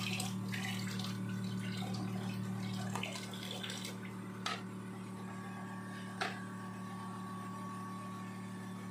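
Reverse-osmosis water machine humming steadily with a low tone, with water running from its faucet for the first three seconds or so. Two light taps follow, one at about 4.5 seconds and one at about 6 seconds, as a TDS pen goes into a plastic cup.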